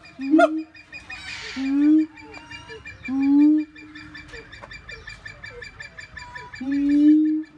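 Siamang calling: four loud, held hoots about a second or more apart, with shorter rising calls between them.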